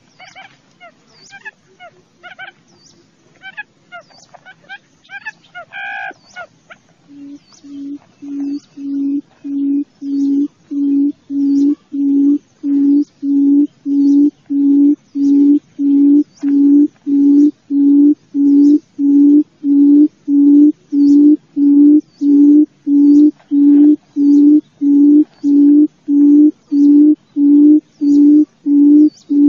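Wild quail giving a low hooting call, repeated about one and a half times a second, that builds in loudness over its first few seconds and then holds steady. It is a call used as a lure for cage trapping. For the first several seconds, before the hooting starts, there are scattered small-bird chirps.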